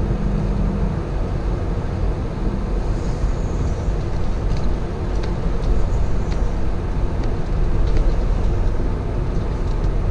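Semi truck's diesel engine running with a steady low rumble as the truck creeps along at low speed, heard from inside the cab. There are a few faint, irregular clicks over it.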